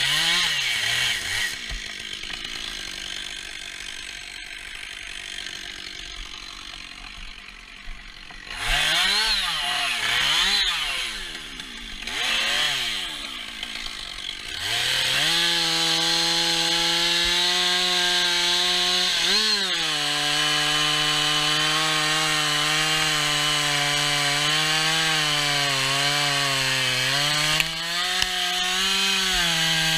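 Holzknecht HS 410 two-stroke chainsaw blipped in several quick revs, then from about halfway held at high revs through a steady cut into the tree, its pitch dipping briefly under load twice.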